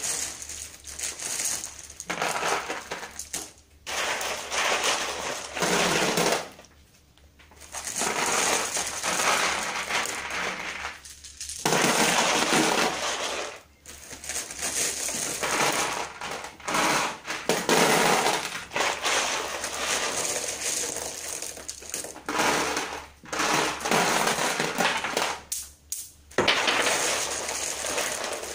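Decorative pebbles and crystals being poured by hand into an electric fireplace's firebox: repeated clattering, rattling pours of a few seconds each, with brief pauses between handfuls.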